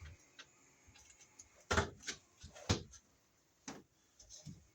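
About five sharp clicks and knocks at irregular intervals, from parts and hand tools being handled during wiremold work.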